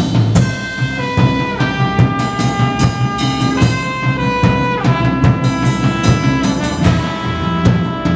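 Live rock band with a trumpet playing a melody of held notes, each lasting about a second, over a drum kit.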